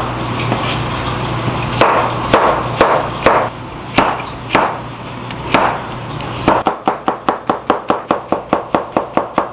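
Kitchen knife cutting a zucchini on a plastic cutting board. It makes single cuts about every half second, then, about two-thirds of the way through, quick even chopping at four or five strokes a second as the slices are cut into matchsticks.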